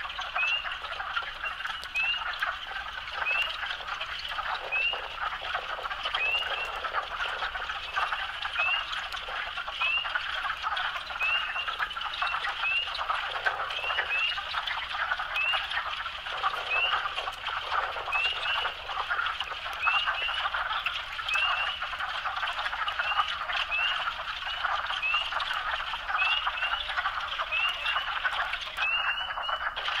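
Wood frog chorus: a dense mass of overlapping duck-like clucking calls, with a short high rising note repeating about once a second.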